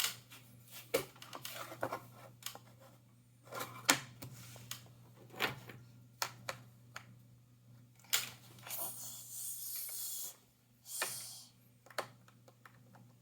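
Puzzle pieces being handled and fitted together: scattered small clicks and knocks, with longer rustling scrapes about eight and eleven seconds in, over a steady low hum.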